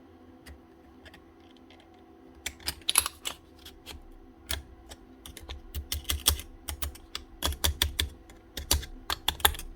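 Irregular sharp clicks and taps of small metal parts being handled and fitted onto a rotary hammer's tool holder: the washer and circlip going on. A few faint clicks at first, then rapid clusters of them from about two and a half seconds in, over a faint steady hum.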